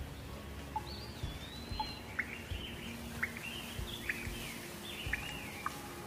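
A songbird singing: whistled phrases that slide up and down, with short sharp chirps about once a second, over a steady background hiss.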